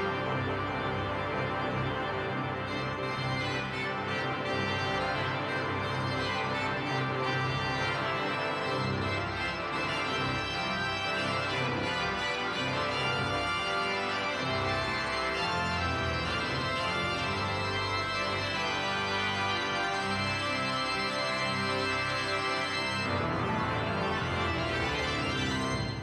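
Pipe organ playing full, sustained chords.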